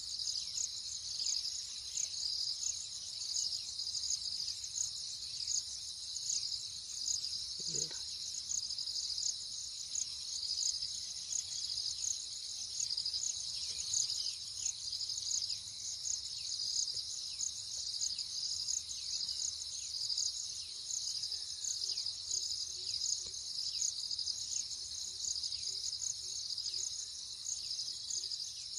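Insect chorus: a steady, high, rapidly pulsing trill.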